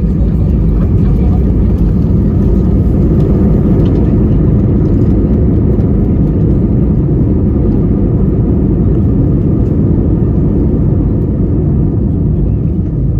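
Airbus A320 landing rollout heard from inside the cabin: a loud, steady, low rumble of the engines and the wheels on the runway under heavy braking, easing a little near the end.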